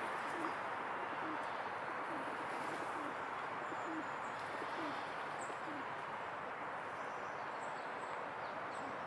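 A bird's short, low cooing calls, about one or two a second, fading out after about five seconds, over a steady even background rush.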